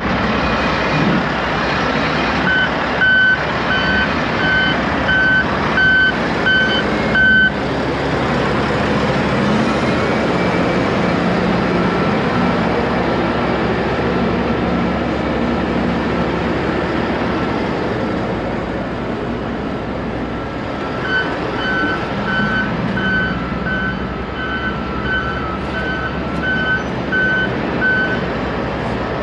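Heavy diesel engine running steadily, with a backup alarm beeping twice in runs of several seconds: from about two to seven seconds in, and again from about 21 seconds in to near the end.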